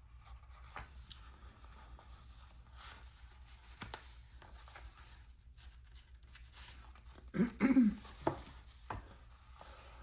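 Quiet paper handling over a paper planner page, with a few single light taps of a pen putting dots on the page, and a short murmur of voice about three-quarters of the way through.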